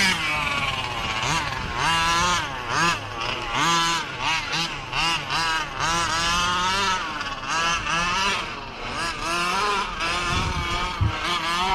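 Small two-stroke petrol engine of a 1/5-scale gas RC car, repeatedly revving up and dropping back, about once or twice a second.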